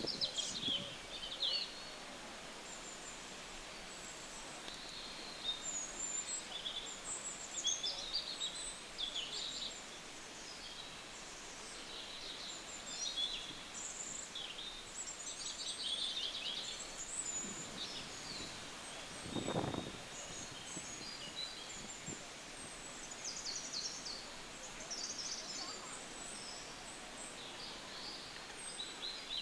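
Several birds chirping and trilling, many short high-pitched calls throughout, over steady outdoor background noise. There is a brief low thump about two-thirds of the way through.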